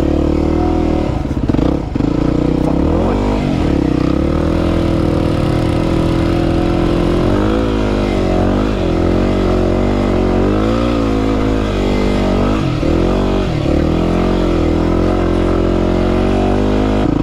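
Yamaha WR250R's single-cylinder engine running under load in soft sand. The revs dip and climb back several times, most in the middle stretch.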